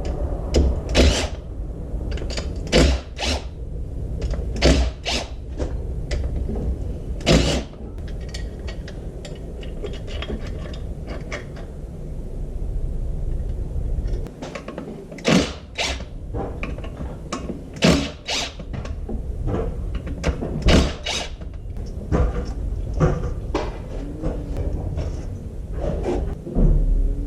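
Irregular clinks and knocks of hand tools and metal parts as a two-stroke dirt bike engine is taken apart, with sharp strikes every second or two over a low background rumble.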